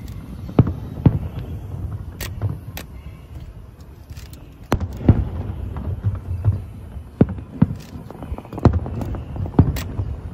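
Aerial firework shells bursting in an irregular series of about a dozen booms, with a rolling rumble between them and a short lull near the middle.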